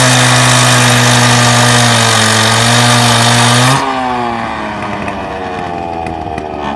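Gas-powered Makita cut-off saw at full throttle, its disc grinding through a metal post with a loud rasp. A little under four seconds in the cut ends, the grinding stops suddenly and the engine falls back toward idle as the throttle is released.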